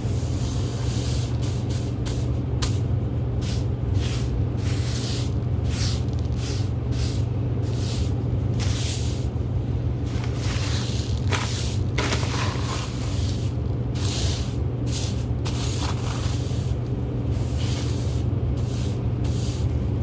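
A steady low machine hum that keeps one pitch throughout, with irregular soft rustling and scraping noises over it.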